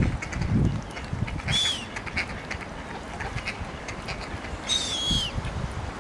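Young mute swans (cygnets) feeding in shallow water: two high, thin peeping calls, each ending in a falling note, about a second and a half and five seconds in. Soft clicks of bills dabbling at the water come between the calls.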